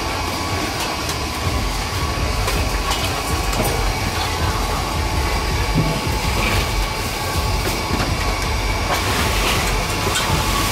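Steady, even background rumble and hiss with a faint thin whine held throughout and a few faint ticks. No single event stands out.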